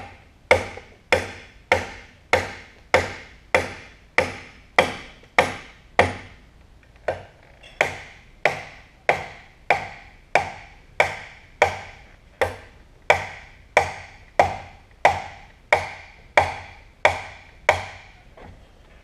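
Steady hammer blows on the cast-iron drill press, driving out a stuck pin. The blows come a little under two a second, each ringing briefly, with one short pause about seven seconds in, and stop near the end.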